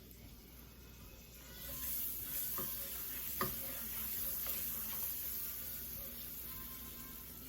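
Finely chopped onions sizzling in butter in a frying pan. The sizzle starts about a second and a half in and holds steady, with a few clicks as a utensil stirs them against the pan.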